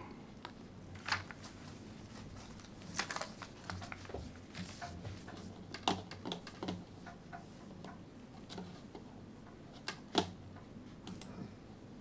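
Scattered clicks and light taps of a computer keyboard and mouse being worked, irregular, with a louder knock about ten seconds in.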